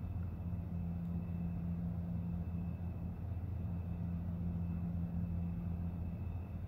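Steady low machine hum with a constant tone, even in level throughout.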